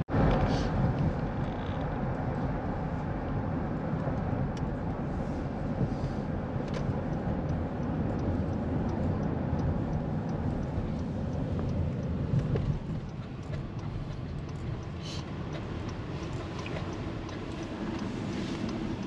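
Steady road and engine noise of a Honda car heard from inside its cabin while driving in traffic. The noise drops a little about two-thirds of the way in.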